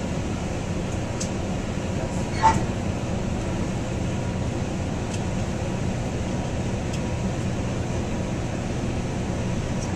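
Steady low rumble of a Coaster commuter train coach in motion, heard from inside the car, with one sharp knock about two and a half seconds in and a few faint clicks.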